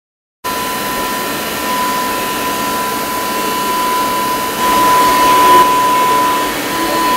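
Cincinnati Arrow 500 vertical machining centre powered up and idling: a steady whirring hum with a high, steady whine, swelling louder for about a second around the middle.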